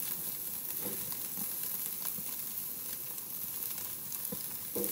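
Oil-sprayed vegetables sizzling on a hot grill: a steady hiss with faint small ticks.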